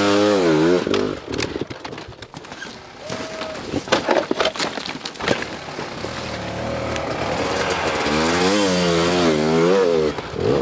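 Enduro dirt bike engine revving up and down in quick, repeated throttle blips, at the start and again for the last few seconds. In between it runs lower, with several sharp knocks and clatters.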